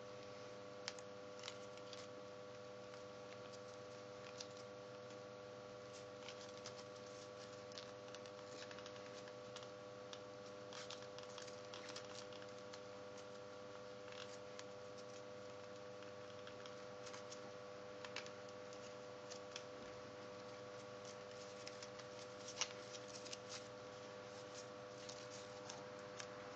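Paper crinkling and creasing under fingers as a folded-paper origami skeleton hand is shaped, with scattered soft crackles and small clicks, a sharper one about a second in and another late on. A faint steady hum runs underneath.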